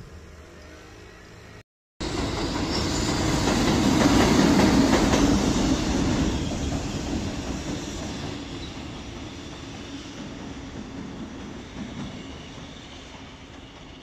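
EH500 electric freight locomotive and its train running past on the tracks: wheel rumble and clatter over the rails that comes in suddenly about two seconds in, is loudest a few seconds later, then fades away slowly.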